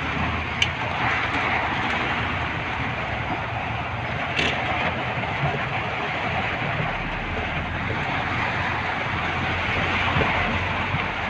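Heavy rain hitting the roof and windshield of a moving vehicle, heard from inside the cab, over a steady low engine and road rumble. There are two sharp clicks, one just after the start and one about four seconds in.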